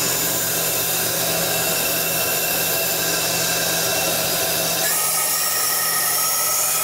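Steady machine hum and airy hiss of running industrial equipment, a constant drone with several fixed tones, whose hiss shifts slightly about five seconds in.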